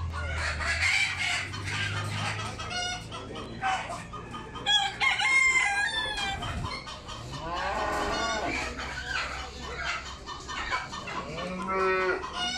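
Caged chickens clucking, with several loud rooster crows standing out, about a third of the way in, in the middle and near the end.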